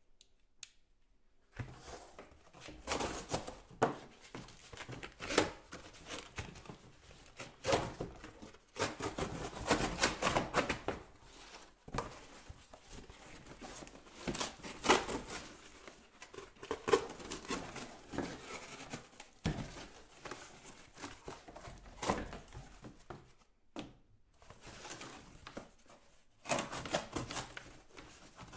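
Corrugated cardboard being cut apart with a small handheld metal cutting tool: irregular crunching snips and tearing, with short pauses between cuts, starting about a second and a half in.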